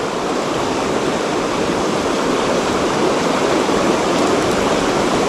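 Shallow rocky river flowing over stones: a steady, even rush of water.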